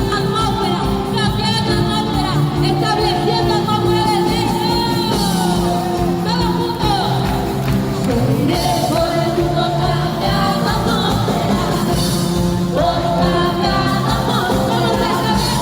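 Live worship music: a band playing with voices singing over it and occasional shouts from the congregation.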